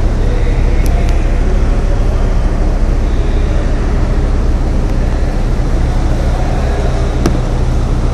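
Boat engine running steadily: a low, even drone, with a few faint clicks about a second in and again near the end.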